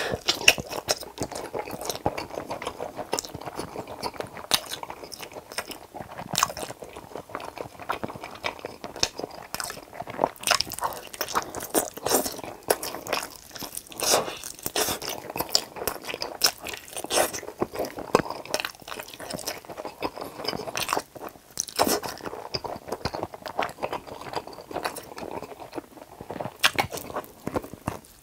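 Close-miked eating of fried chicken drumsticks dipped in cheese sauce: crunchy bites into the coating and wet, sticky chewing, with many sharp crackles and smacks.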